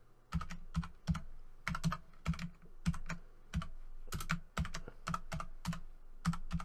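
Computer keyboard being typed at an uneven pace, about a dozen and a half separate keystrokes, some in quick pairs, as a password is entered.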